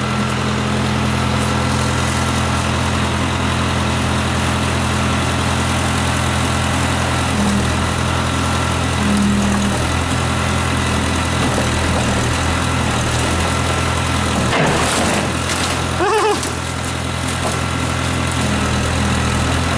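Case 580 backhoe's diesel engine running steadily while the machine is worked. About fifteen seconds in there is a short hiss, followed by a brief squeal.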